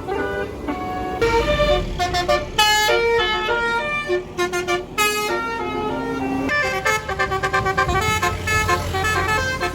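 Tour bus basuri horn, a roof-mounted multi-trumpet horn, playing a melody of held notes that step from pitch to pitch, several notes at once, over the bus engine's low rumble.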